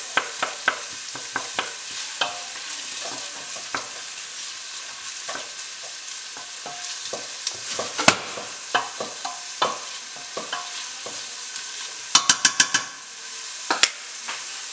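Onions sizzling as they fry in oil in a stainless-steel pot, stirred with a wooden spoon that clicks and scrapes against the pot. About twelve seconds in comes a quick run of about six sharp knocks.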